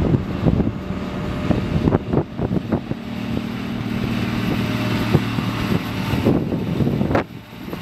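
Cat 966H wheel loader's diesel engine running steadily as the loader drives by carrying steel pipes, with scattered knocks and bumps over the engine hum.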